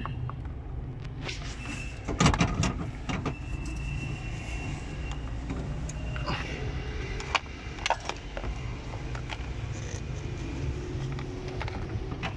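A car engine running at a steady idle, heard from inside the footwell, with scattered clicks and knocks from hands handling parts under the dashboard. The loudest knock comes about two seconds in.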